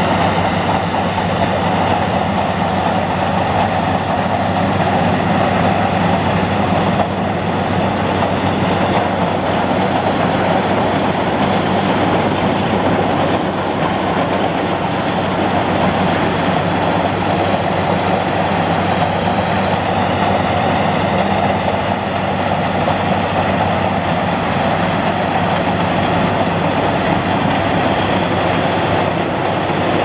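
Sumo Crown rice combine harvester running steadily as it cuts rice: a constant engine drone mixed with the noise of its cutting and threshing machinery.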